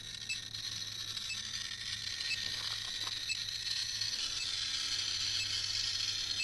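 GQ GMC-320 Plus Geiger counter giving a rapid, dense crackle of clicks that grows denser and louder as it is held against a cat treated with radioactive iodine (I-131). The count climbs past 40,000 counts per minute, a very high radiation reading.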